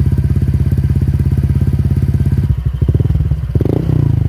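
Honda Vario 125's single-cylinder engine running at idle through an SKR racing aftermarket exhaust, with a steady, even beat of exhaust pulses. About halfway through, the beat turns uneven, with short swells near the end.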